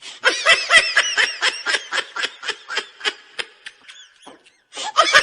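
High-pitched, rapid giggling laughter: quick rising-and-falling bursts, about four or five a second. It thins out and breaks off briefly near the end, then starts again.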